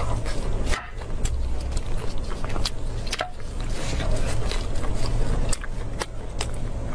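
Close-miked handling of a large cooked beef rib: gloved hands pulling the meat apart and setting it on lettuce leaves, giving scattered sharp clicks and crackles over a steady low rumble.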